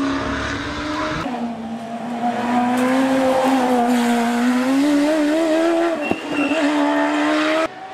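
Silver Car EF10 hillclimb racing car's engine running hard at high revs, its pitch wavering and climbing as the car is driven up the course. The sound changes abruptly about a second in and again near the end.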